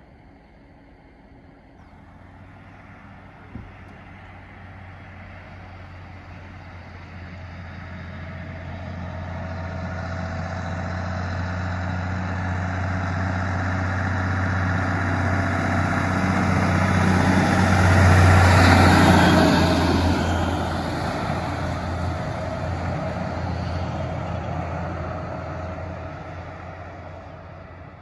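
1941 Mack FP logging truck driving past: its engine grows steadily louder as it approaches, is loudest as it goes by about two-thirds of the way through, then fades as it pulls away.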